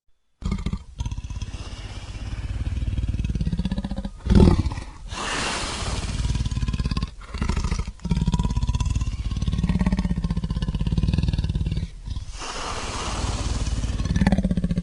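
2019 King Ghidorah creature sound effect: a long series of deep, rumbling roars and growls that starts about half a second in, with a louder roar about four seconds in.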